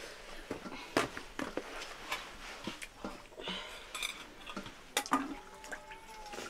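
A meal of rice eaten by hand from a steel plate: irregular light clinks and scrapes of fingers and metal dishes, with sharper knocks about a second in and about five seconds in.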